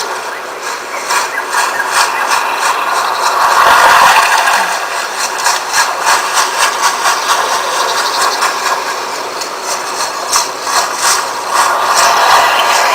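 A Dolby Atmos demo soundtrack of mechanical sound effects, played through the Lenovo Vibe K5 Plus smartphone's loudspeaker: thin and without bass, with quick runs of clicking and clatter.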